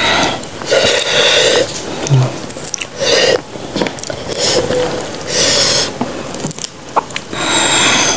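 Close-miked mouth sounds of eating raw stone banana with rujak sambal: four loud bursts of chewing and breathing noise, about two seconds apart.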